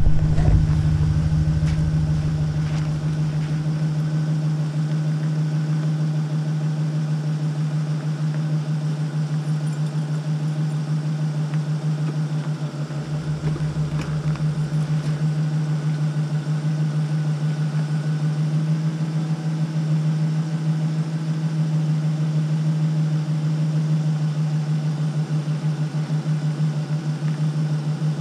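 Chevy Silverado pickup's engine idling steadily, a constant low hum.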